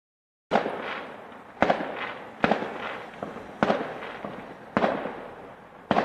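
Aerial firework shells bursting: six sharp bangs about a second apart, starting about half a second in, each trailing off in a rolling echo.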